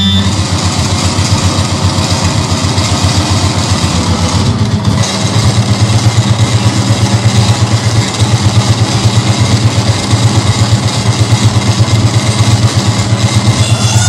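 Loud electronic noise music from a laptop-and-electronics rig: a dense, harsh wash of noise covering the whole range. About five seconds in, a fast low throbbing pulse takes over beneath it, at roughly five beats a second.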